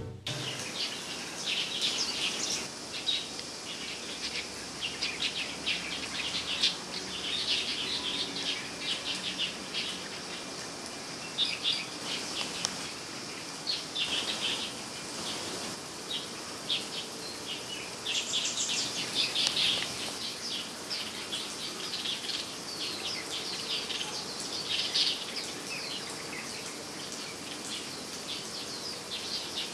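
Light-vented bulbuls calling: a busy, continuous stream of short, sharp chirps from several birds, over a steady high hiss.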